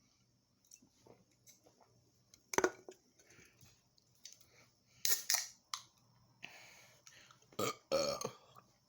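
Aluminium Red Bull cans being handled: several sharp clicks and clanks and a couple of short hisses. Near the end comes a loud burp from a man full of energy drink.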